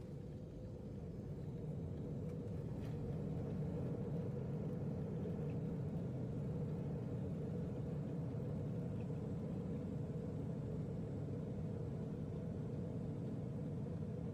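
Steady low rumble of an airliner heard from inside the cabin as it slows along the runway after landing, the noise of jet engines and wheels on the runway. It grows a little louder over the first couple of seconds, then holds steady.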